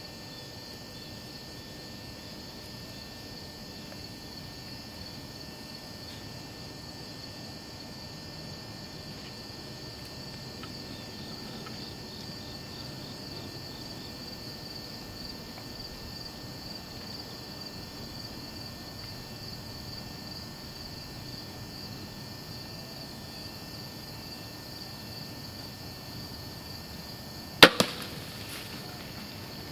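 Crossbow shot: one sharp, loud crack near the end, followed a fraction of a second later by a second, weaker crack. Insects chirr steadily in the background.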